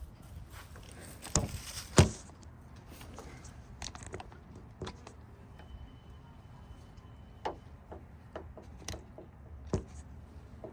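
Scattered handling knocks and clicks of plastic car-door trim and the camera being moved. The loudest knock comes about two seconds in, with lighter clicks spread through the rest.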